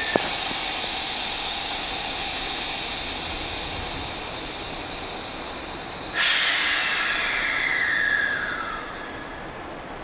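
Nishitetsu 8000 series electric train standing at the platform, with a steady hiss that slowly fades. About six seconds in, a sudden loud blast of compressed air starts, its whistling tone falling in pitch for a couple of seconds before it dies away.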